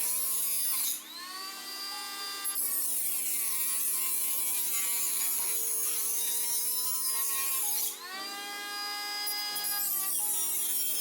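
Cordless rotary tool (Dremel-type) cutting through metal with a high-pitched whine and a hiss of grinding. Its pitch sags sharply twice, about a second in and around eight seconds in, as the tool bogs under load and then spins back up.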